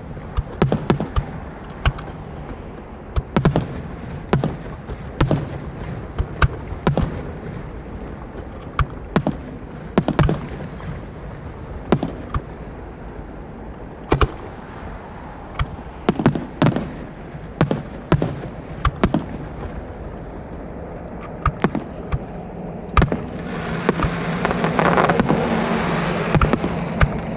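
Fireworks display: aerial shells bursting in a steady series of sharp booms, one or two a second, with a denser rush of noise building near the end.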